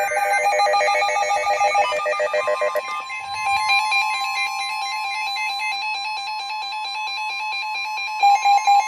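Electronic emergency alert tones from a broadcast alert: a fast trilling, warbling run of several tones, joined about two and a half seconds in by a steady high tone that holds, with a run of short beeps near the end.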